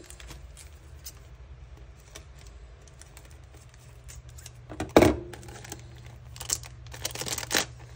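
Handling of a metal paper-craft cutting die in its plastic packaging: one sharp knock about five seconds in, then a few lighter clicks and rattles.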